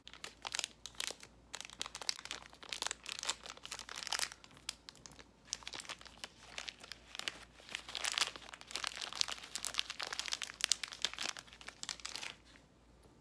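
Plastic snack packet of salted peanuts crinkling and crackling irregularly as it is handled and torn open, dying away shortly before the end.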